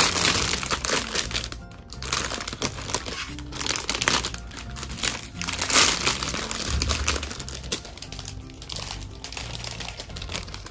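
Clear plastic bag crinkling as the parts runners of a plastic model kit are handled and unwrapped, with background music underneath.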